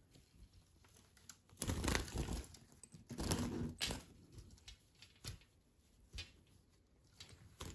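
Cloth cage cover rustling as it is pulled off a small wire birdcage, in two bursts, followed by a few sharp clicks and knocks of the cage. The European goldfinch inside flutters about the cage as it is uncovered.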